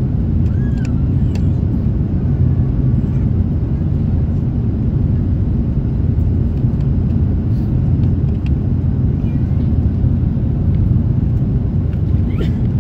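Steady low rumble of a vehicle in motion, heard from inside, with a few faint short high squeaks over it.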